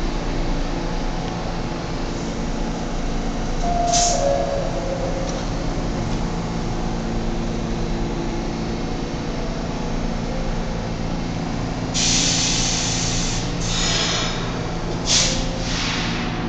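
R46 subway train standing in a station, running with a steady hum and faint whine from its onboard equipment. A brief two-note tone sounds about four seconds in, and several short hissing bursts come near the end.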